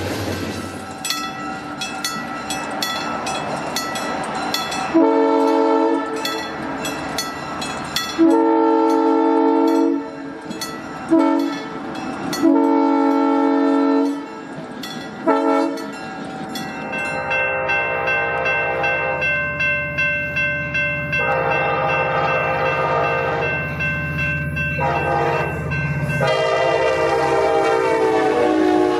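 Diesel locomotive horns giving a horn salute: five blasts, some long and some short, then a different horn chord sounding in repeated pulses for about ten seconds over the low rumble of a passing train. Before the first blast, grade-crossing bells ring steadily as freight cars roll by.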